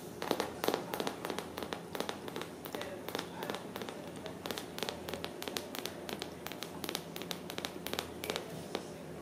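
Wire pet pen rattling, with rapid, irregular clicks and crackles of its metal bars.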